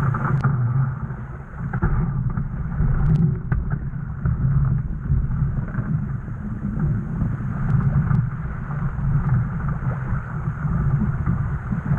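Wind buffeting the microphone aboard a Laser Vago sailing dinghy under way, over water rushing along the hull, with a few faint clicks about half a second, three seconds and eight seconds in.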